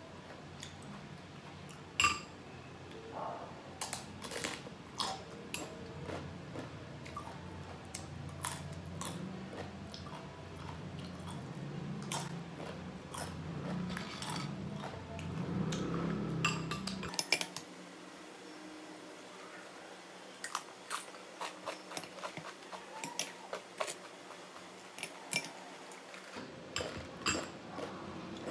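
Crunchy tortilla chips being bitten and chewed close to the microphone, in a run of sharp, crackly crunches and clicks. A low background hum stops suddenly about two-thirds of the way through.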